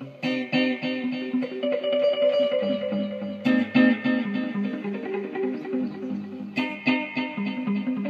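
Background music led by plucked guitar, with a bass line and a sharp accent about every three seconds.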